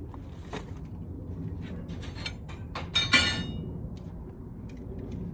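Handling noise as items are moved and set down: scattered knocks, with a loud clatter about three seconds in that rings briefly.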